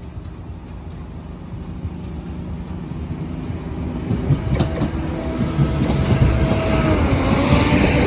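Diesel train approaching and running past, growing steadily louder, with a steady engine hum and wheels clacking over the rail joints in the second half.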